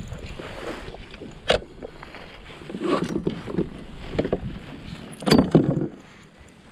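Knocks and scuffs on a kayak as a freshly caught small bream is brought aboard and handled: one sharp knock about a second and a half in, and heavier bumps around three seconds and again near the end.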